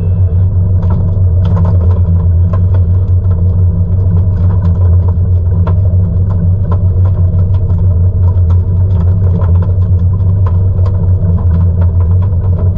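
Fishing boat's engine running with a steady low drone, with scattered light clicks and knocks over it.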